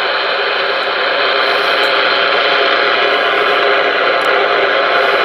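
Steady receiver static hiss from a Stryker SR-497HPC ten-meter radio's speaker, with the squelch open and no station on the channel.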